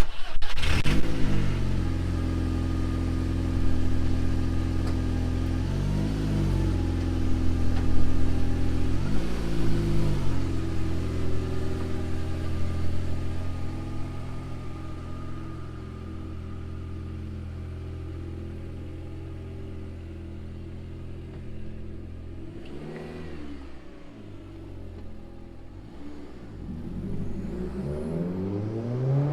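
Audi S3 8L's 1.8-litre turbocharged 20-valve four-cylinder engine starting and settling into a steady idle. It gives two short rev blips a few seconds in, and the revs climb again near the end.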